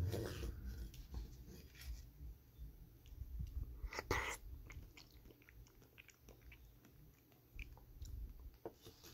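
Someone chewing a piece of coconut lychee jelly: scattered small wet mouth clicks, with a louder burst about four seconds in. A low knock on the wooden board comes at the very start as the knife cuts the jelly.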